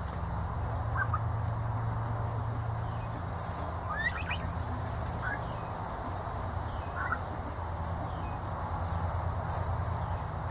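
Young turkeys feeding on grass, giving a few short, high, upward-sliding trills, about four scattered through, the one about four seconds in the loudest. Under them runs a steady low hum.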